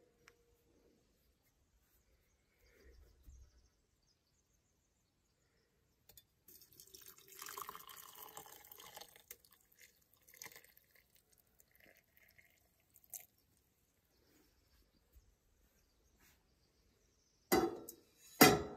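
Hot water poured into a metal tea strainer in a cup, a trickling pour of about four seconds. Near the end come two short clanks of a metal pot set down on the stove grate.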